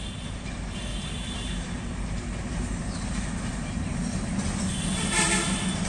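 Diesel locomotive heading a passenger train, its engine rumbling and growing steadily louder as it approaches. A short higher-pitched sound rises above it near the end.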